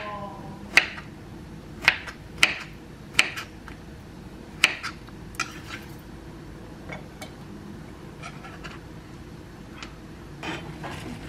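Kitchen knife slicing cucumber on a wooden cutting board: sharp, irregular knocks of the blade striking the board, six loud ones in the first five seconds, then only a few lighter, sparser taps.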